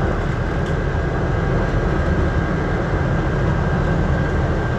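Inside a city bus under way: steady engine rumble and road noise heard from the driver's seat, with a faint steady high whine above it.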